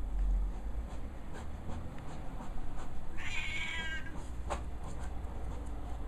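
A cat meows once, a single short, slightly falling call a little past the middle, followed soon after by a brief knock.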